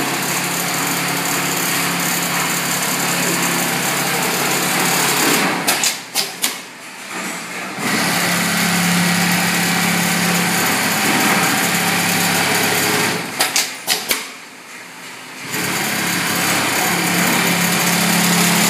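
Automatic programmable pattern sewing machine stitching along a template at a steady speed, with a steady motor hum. It stops twice, each time with a few sharp clicks and a short pause, then starts sewing again.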